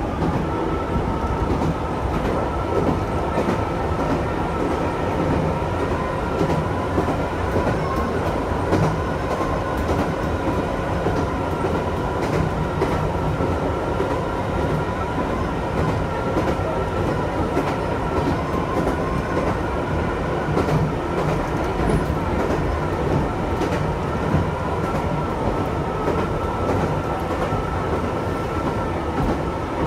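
Chichibu Railway electric train running along the track, heard from inside the car just behind the driver's cab: a steady rumble of wheels on rails with a steady whine and occasional clicks.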